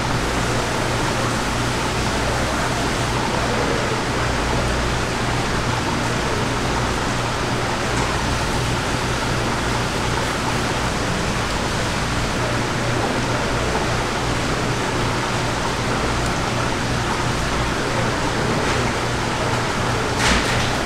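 Steady rushing background noise of a fish market with a low hum underneath, and one short sharp sound near the end.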